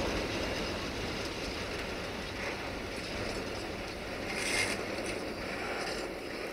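A passing train's rolling noise carrying on and easing off, with a few short metallic clanks and squeaks; the sharpest comes about four and a half seconds in.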